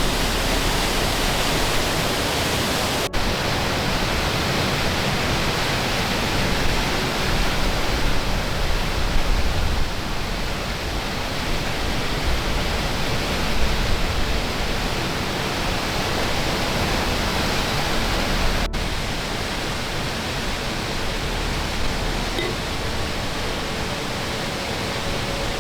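Waterfall pouring, a steady, dense rush of falling water, with two momentary breaks.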